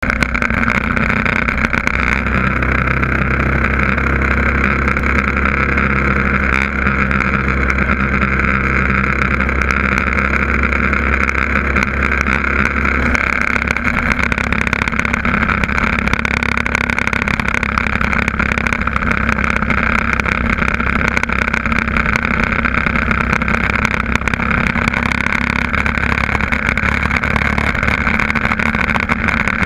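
Yamaha TT600E's single-cylinder four-stroke engine running steadily at cruising speed, with wind and road noise rushing over the bike. The engine note changes about halfway through.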